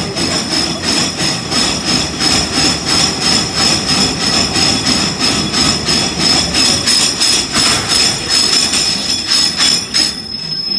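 Cement-cleaning machine running a steel footboard through, with rapid, even knocking as it beats set cement off the plank and a steady high whine; both stop near the end.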